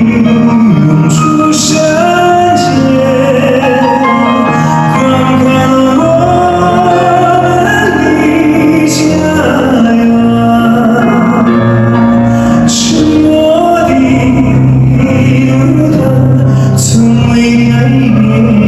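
Live performance of a Mongolian-style ballad: a male singer holds long, sustained melodic notes over full band accompaniment, recorded from the audience with a hall-like, somewhat unclear sound.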